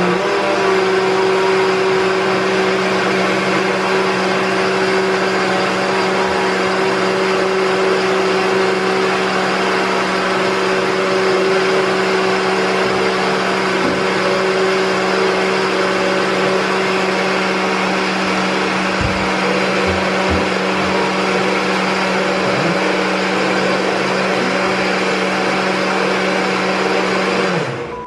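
Countertop blender running steadily at one speed, blending a creamy cheese-pie batter, the motor winding down and stopping near the end.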